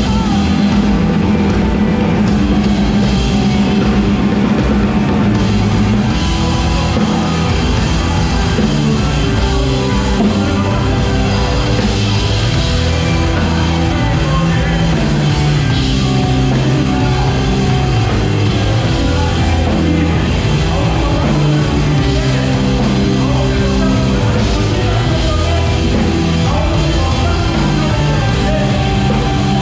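Loud rock music with drums and distorted instruments, and some singing.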